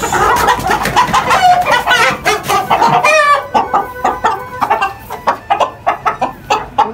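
Chickens squawking and clucking in alarm as they are grabbed and held by hand, with wings flapping. A fast run of rising squawks comes about three seconds in, then many short sharp clucks and flaps.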